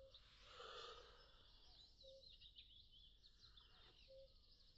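Near silence outdoors with faint distant birdsong: small birds chirping and twittering, with a short low note repeating about every two seconds.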